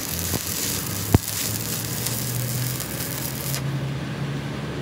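Stick-welding arc crackling and sizzling as weld metal is built up on the damaged threaded end of a truck's axle spindle, ready for the threads to be re-cut. A sharp click comes about a second in, and the arc's crackle drops away near the end, leaving a low hum.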